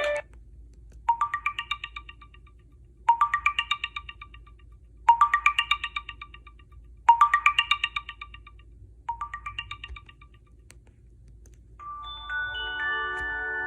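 A Sony Ericsson W995 mobile phone playing a ringtone: a quick rising run of bright notes, repeated five times about two seconds apart, the fifth softer. Near the end a different ringtone starts, with several held notes sounding together.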